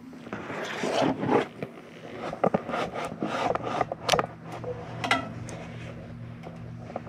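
A chimney inspection camera rubbing, scraping and knocking against the clay flue tiles as it is lowered down the chimney, with several sharp knocks and a steady low hum underneath.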